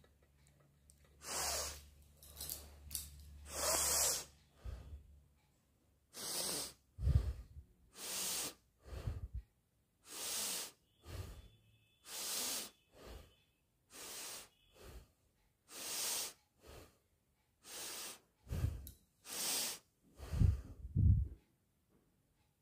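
A woman sniffing and breathing hard through her nose again and again: about twenty short, noisy sniffs and breaths roughly a second apart, some with a low thump of breath on the microphone.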